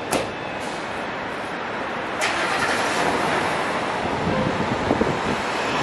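Road traffic passing on a city street: a steady rush of car engine and tyre noise that grows a little louder about two seconds in, with two brief sharp clicks.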